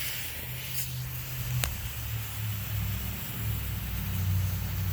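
Fuse of a small homemade cherry bomb hissing steadily as it burns down. A low rumble runs underneath, and there is a faint click about a second and a half in.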